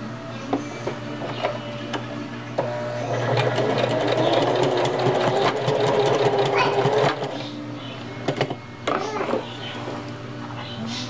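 Singer Heavy Duty sewing machine stitching fast for about four seconds, starting about two and a half seconds in, back-tacking elastic down into the seam allowance. Near the end come a few sharp clicks and snips as the threads are cut with scissors.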